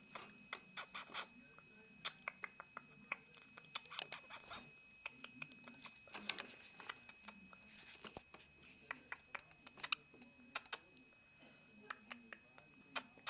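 A pet parakeet moving about, making irregular, sharp little clicks and taps with a few short rustles in between.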